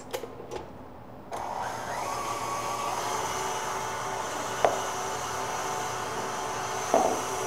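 Electric mixer switched on about a second in and running steadily, whipping a firm coconut montée cream; a couple of sharp knocks rise over it later.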